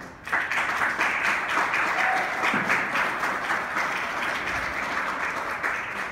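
Applause: many people clapping, breaking out suddenly just after a choir song ends and tapering off near the end.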